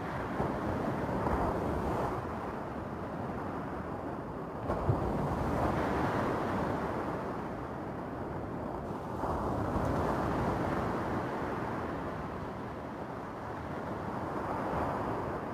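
Small waves breaking and washing over a stony beach, the surf swelling and easing about every four to five seconds.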